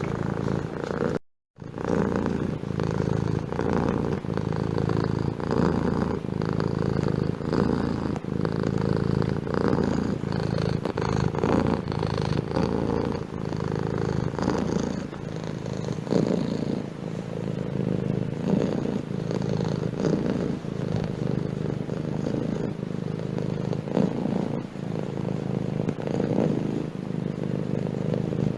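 Domestic cat purring steadily up close, a low rhythmic rumble that pulses with each breath. It cuts out completely for a split second about a second in.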